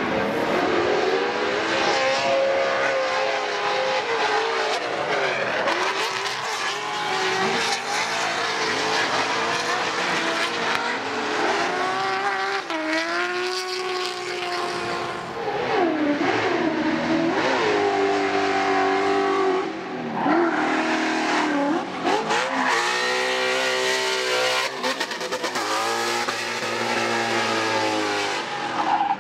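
Drift cars' engines revving hard, the pitch repeatedly climbing and falling as the drivers work the throttle through the slide, over the steady hiss and squeal of spinning, sliding tyres.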